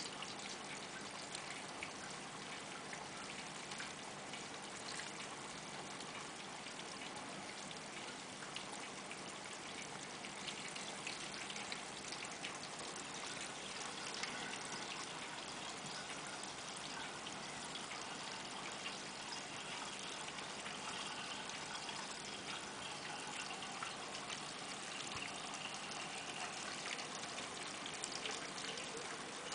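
Steady trickling and splashing of water circulating through a saltwater reef aquarium's filtration, with small crackles of bubbles.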